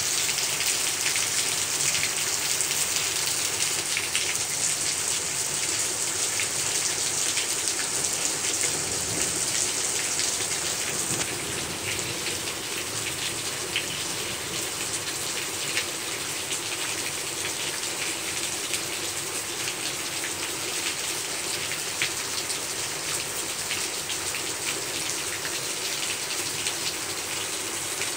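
Heavy rain falling steadily, with scattered individual drop hits on nearby surfaces; a little louder for the first ten seconds or so, then settling slightly.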